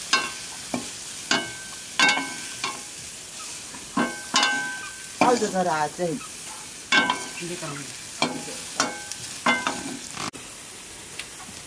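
Metal ladle knocking and scraping against an iron karahi while meat is stirred and fried. About a dozen ringing clanks come at irregular intervals over a steady frying sizzle.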